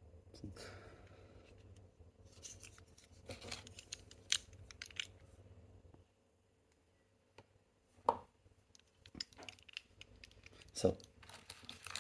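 Scattered small clicks and scrapes, with two sharper knocks about 8 and 11 seconds in, as metal and polycarbonate fidget toys are handled. A low steady hum stops about halfway through.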